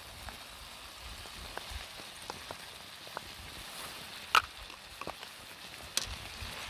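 A pan of tomato sauce and diced peppers sizzles and simmers over a wood fire in a small metal camp stove, with a steady fizzing hiss and the fire crackling in scattered pops. One sharp crack comes about four seconds in and another near the end.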